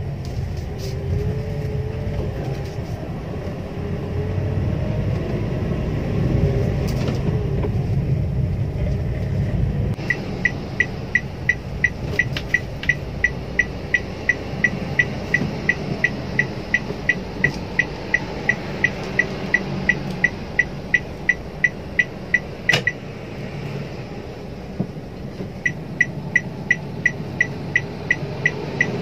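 Car cabin noise, a steady rumble of engine and tyres. About a third of the way in, the turn-signal relay starts ticking at a fast, even rate. It stops for a couple of seconds after a single sharp click, then starts ticking again near the end.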